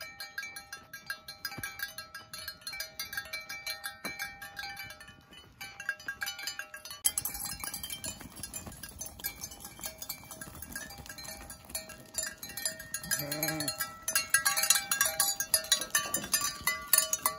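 Background music with steady held tones. About seven seconds in, a flock of sheep and goats trots in over dry dirt with hooves scuffing and clattering, and one animal gives a single bleat that falls in pitch.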